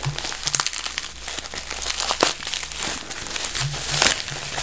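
Packaging crinkling and tearing in irregular handfuls as a tightly taped-up item is unwrapped by hand.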